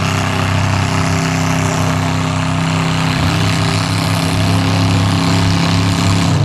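Mud-bog pickup truck engine running at a steady, unchanging speed: an even drone that does not rev up or down.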